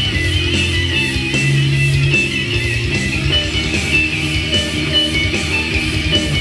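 Playback of a finished rock song led by electric guitar played through an EarthQuaker Devices Astral Destiny octave reverb pedal, layered guitar parts over a steady beat.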